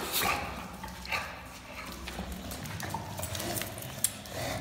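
An English bulldog playing excitedly, making short noisy sounds, the two strongest near the start and about a second later, with a single sharp click about four seconds in.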